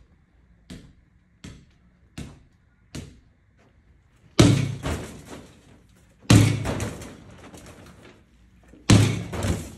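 Small basketballs striking a Pop-A-Shot arcade basketball game's backboard and rim: a run of light taps about every three-quarters of a second, then three loud rattling hits, each ringing on for about a second as the ball drops back down the ramp.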